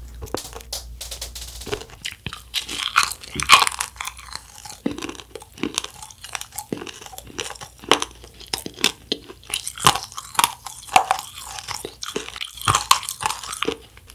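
Close-up crunching and chewing of a flying saucer wafer candy topped with small candies. The crisp wafer shell gives many irregular, sharp crunches.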